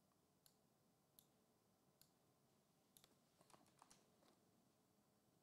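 Faint clicking at a computer, a few single clicks about a second apart, then a quick run of clicks around the middle.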